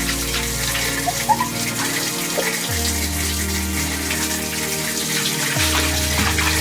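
Running, splashing water over background music, whose low held notes change twice.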